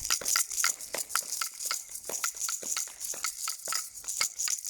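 Scattered hand clapping from several people, sharp irregular claps overlapping at several a second.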